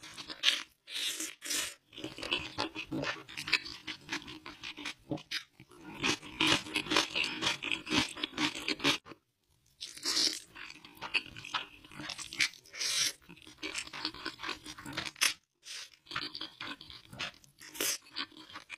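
Close-miked eating sounds: spicy noodles slurped from a spoon and chewed, a dense run of wet mouth clicks, broken by short pauses about nine and fifteen seconds in.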